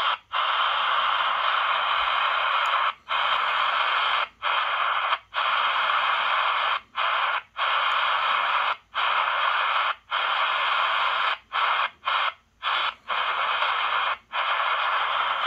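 Shortwave static hiss from a Hanrongda HRD-747 receiver tuned around 3.48 MHz, with no station heard. The hiss cuts out briefly about a dozen times at uneven spacing as the frequency is stepped, the receiver muting its audio for a moment with each tuning step.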